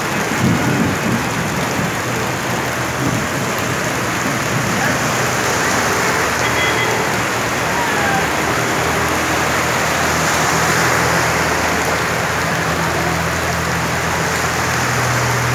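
Heavy rain falling steadily on a flooded road, with vehicles driving through the standing water. A low engine hum comes in about halfway through and grows louder near the end.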